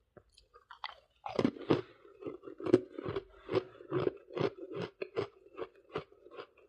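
Close-up chewing of soft freezer frost: a few faint clicks, then from about a second in a steady run of crisp crunches, roughly two or three a second.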